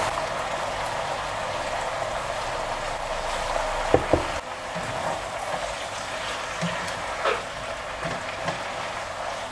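Instant noodles, vegetables and meat sizzling as they are stir-fried in a pan, with the utensils knocking against the pan about four seconds in and again past seven seconds.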